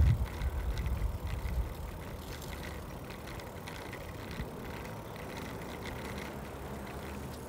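Gusty wind rumble on the microphone that dies away about a second and a half in, leaving a faint, steady open-air street background with a few light ticks.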